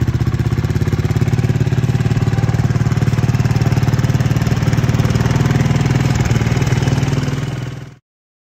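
Montesa 4RT 300RR trials bike's single-cylinder four-stroke engine idling steadily with an even pulse. It cuts off abruptly about eight seconds in.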